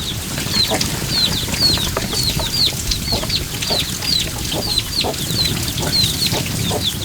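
Chicks peeping: a run of short, high chirps that fall in pitch, about three a second, over a low steady background noise.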